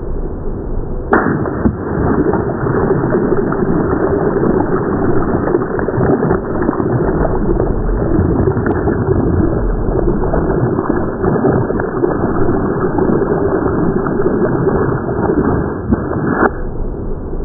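Water running in a heavy, steady stream, as when filling a toy from a tap or hose. The sound gets louder and fuller about a second in and changes abruptly twice more.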